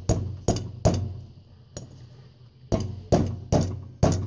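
Hammer striking a steel centrifugal-clutch shoe to drive a stiff shoe spring into its hole: three quick blows, a pause of about two seconds, then four more, each with a short metallic ring. These are the hits that lock the spring into place in the shoe.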